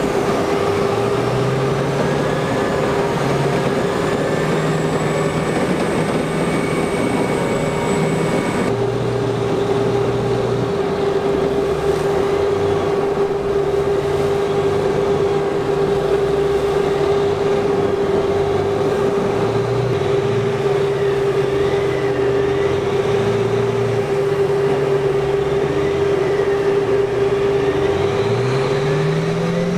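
AAV7 amphibious assault vehicle's engine running steadily as the vehicle drives through the water, a constant hum over lower tones that shift up and down.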